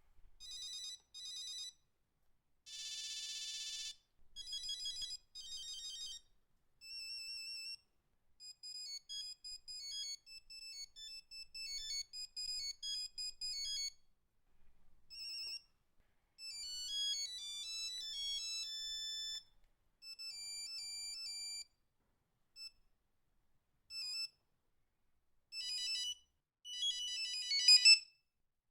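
An original Nokia 3210 playing its built-in monophonic ringtones one after another. Each is a short beeping melody of single notes, with brief pauses between tunes, and the last ones are louder.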